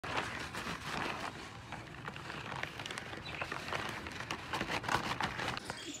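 Brown paper bag crinkling as a hand handles it: a steady run of small crackles and clicks.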